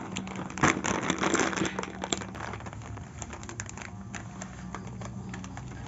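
Plastic snack packets crinkling and rustling as they are handled and set down, busiest in the first couple of seconds and then quieter, scattered rustles.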